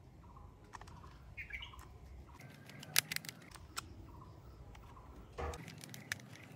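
Small screwdriver driving screws into the plastic chassis of a toy forklift: faint scattered clicks and scraping, with a sharper click about three seconds in.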